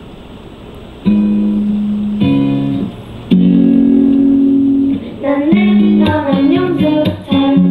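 Music playing loudly from a portable Bluetooth speaker, starting about a second in: long held notes, then from about five seconds in a busier tune with a plucked-guitar sound and singing.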